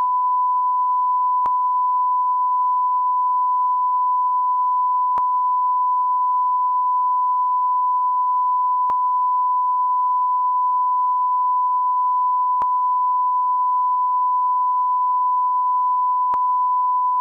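A TV 'program interrupted' beep: one steady, high-pitched pure tone held without a break at an even level, with a faint click about every four seconds.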